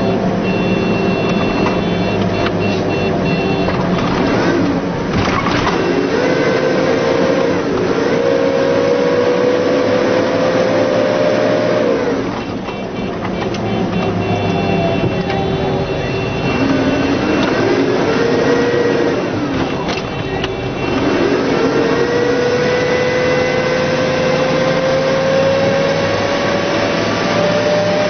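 Vehicle engine running under way, heard from on board, with tyre and road rumble. Its note climbs steadily as it accelerates, then falls away as it eases off, several times over.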